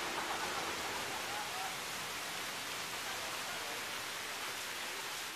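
Steady, even background hiss with no distinct sound events.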